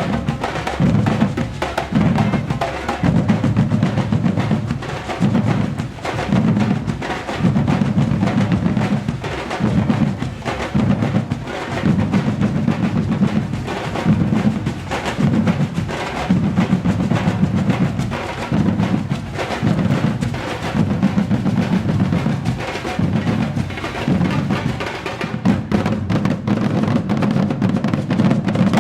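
Batucada drum ensemble playing: deep bass drums pulse about once a second under dense, fast drumming from higher drums.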